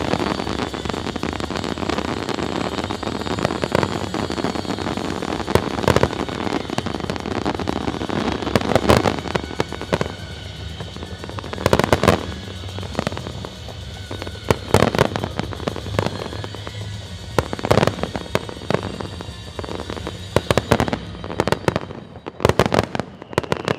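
Fireworks display: aerial shells bursting, with dense crackling and popping for about the first half, then separate sharp bangs every couple of seconds.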